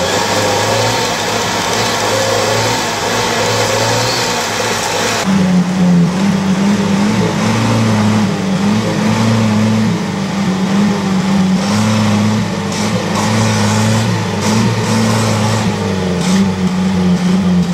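UAZ-469 off-roader's engine revving up and down under load, straining to pull the vehicle out of deep mud it is stuck in.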